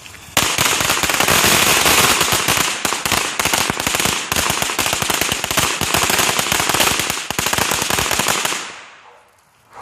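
A string of firecrackers going off in a rapid, continuous run of sharp pops that starts about half a second in and dies away after about eight seconds.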